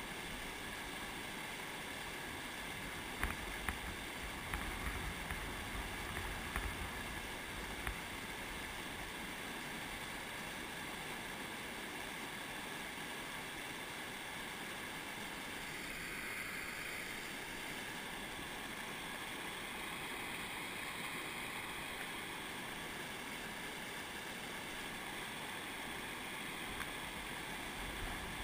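River white water rushing steadily over a rocky ledge in a rapid. A few short sharp knocks come between about three and eight seconds in.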